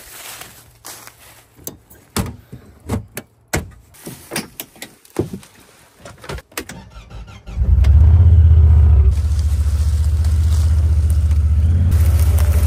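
Knocks and clicks of someone climbing into a side-by-side UTV. About seven and a half seconds in, its engine starts and runs steadily.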